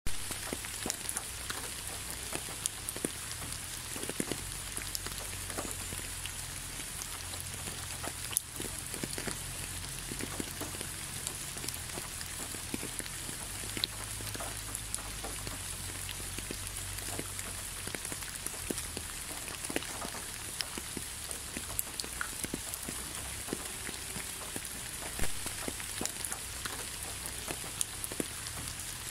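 Steady rain falling, with a constant hiss and many close individual drops striking a hard surface. A few drops land louder than the rest.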